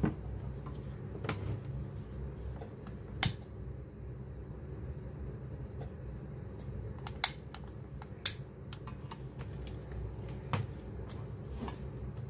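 Handling noise at a soldering bench: scattered sharp clicks and taps as a black cable and a soldering iron are moved against the wooden bench and the iron's metal stand. The loudest click comes about three seconds in, with a cluster around seven to eight seconds, all over a steady low hum.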